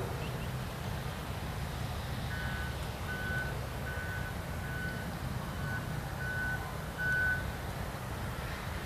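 Heavy diesel engine of a Hitachi excavator running steadily, with a reversing alarm giving about seven single-pitch beeps, a little under a second apart, from about two seconds in until near the end.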